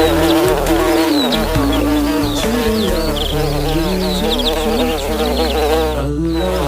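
Instrumental break of a children's song: a wavering, buzzy melody line over a stepping bass, with quick high bird-like chirps scattered through it.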